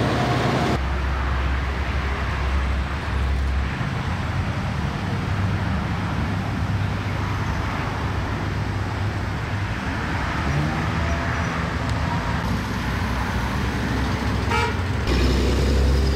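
Highway traffic: steady tyre and engine noise of cars and pickup trucks driving past. The sound changes abruptly about a second in and again near the end.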